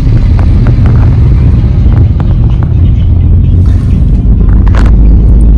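Loud, steady low rumble of a moving vehicle during a ride through market traffic, with a few faint clicks.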